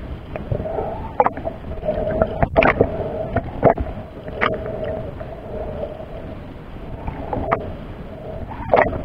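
Underwater sound picked up by a camera in its housing: a wavering hum that swells and fades every second or two, with irregular sharp clicks and knocks, the loudest about two and a half and three and a half seconds in and again near the end.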